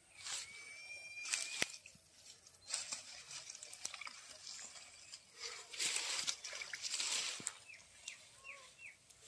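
Grass and water hyacinth leaves rustling and crunching in irregular bursts as someone pushes through them by hand. Birds chirp, with a quick series of four short chirps near the end.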